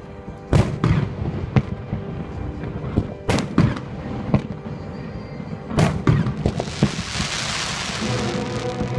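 Fireworks display: a string of sharp shell bursts spaced roughly a second apart, then a long crackle from crackling shells about six and a half seconds in. Music plays underneath.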